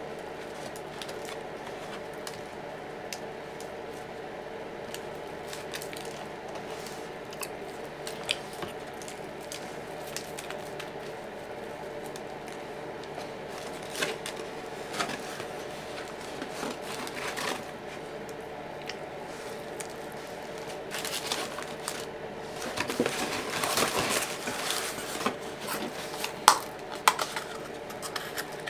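Close-up eating sounds: chewing and wet mouth noises with scattered small clicks and crinkling of food packaging, busiest in the last third, over a steady hum.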